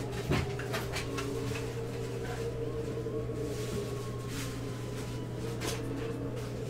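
Scattered light clicks and knocks of someone rummaging through card-storage supplies, most of them in the first second or two and a few more later, over a steady electrical hum.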